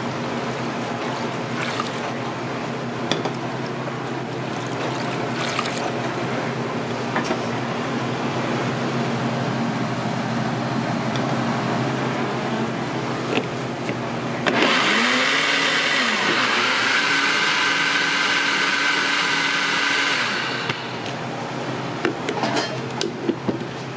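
Countertop blender motor starting about halfway through, its whine rising as it spins up and then running steadily for about six seconds as it purées purple yam (ube) with liquid, then cutting off. Before it starts there is only a steady background hum.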